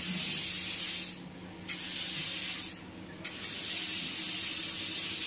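Water from a Toshi Auto Tap T-418 sensor basin tap pouring into a ceramic wash basin. The flow cuts off twice for about half a second and starts again at once as the hand moves by the sensor, showing the tap's quick response.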